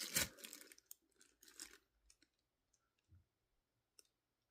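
Packaging being handled: a brief crinkle of packaging at the start, then a few faint, scattered clicks and taps with quiet in between.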